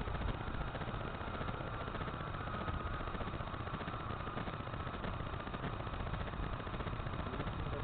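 Radio-controlled model airplane's motor droning steadily in flight, its pitch drifting slightly, under heavy wind noise on the microphone.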